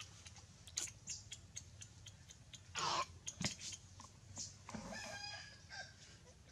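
Domestic chickens clucking in the background, with a short pitched call about five seconds in, scattered faint clicks, and one louder brief noise about three seconds in.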